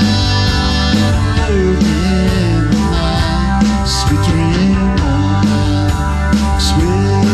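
A live rock band plays through a PA: an electric guitar line with bent, gliding notes over bass and a drum kit. Cymbal hits ring out at about four seconds and again near six and a half.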